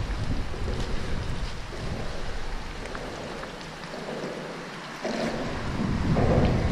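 Wind buffeting the microphone over open water: a rumbling rush that eases in the middle and comes back abruptly about five seconds in.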